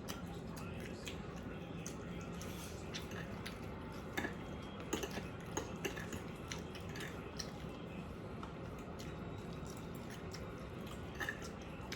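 Close-up eating sounds: chewing, with scattered light clicks of cutlery against dishes, over a steady low hum.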